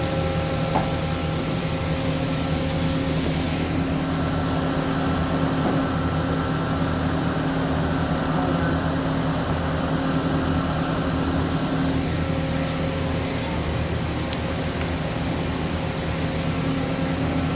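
Okuma LB-300M CNC turning center with its spindle running at speed, around 1,000 rpm: a steady machine hum with several steady tones. Its higher hiss shifts about three and a half seconds in and again about twelve seconds in.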